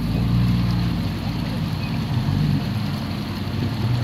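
Jeep Cherokee's engine running under throttle as it crawls through a muddy ditch, its pitch rising and falling slightly.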